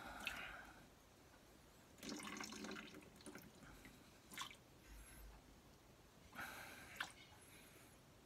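Faint, scattered breaths and mouth noises from a man close to the microphone, with a short low vocal sound about two seconds in and a small click near the end.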